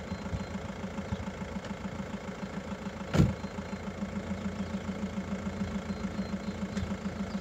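Audi A3 Sportback's engine idling steadily with an even pulsing beat, with one short thump about three seconds in.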